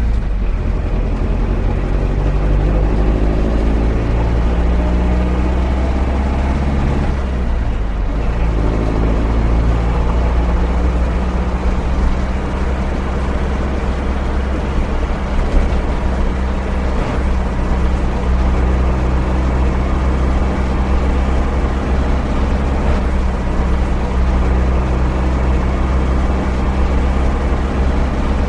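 A van's engine under way, rising in pitch as it accelerates. About seven and a half seconds in, the pitch drops briefly at a gear change and climbs again. From about ten seconds on it runs at a fairly steady speed.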